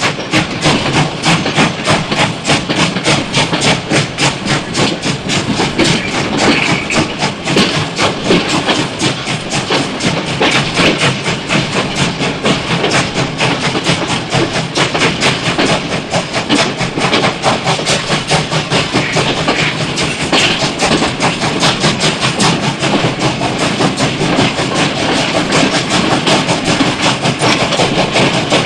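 Steam locomotive running, its exhaust chuffing in a fast, even rhythm.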